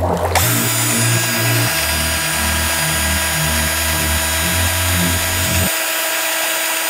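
Power drill running steadily at speed, spinning a cup on a shaft to whip dry-ice fog into a vortex. A low, uneven hum runs underneath and stops near the end.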